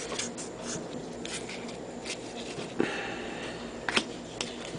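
Baseball trading cards being slid and flipped through by hand: soft rustles and light clicks of card stock at scattered moments, with a longer swish a little past the middle.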